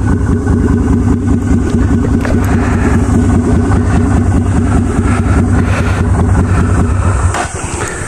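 Yamaha Virago 250 custom chopper's air-cooled V-twin running steadily under way, then falling off in level about seven seconds in.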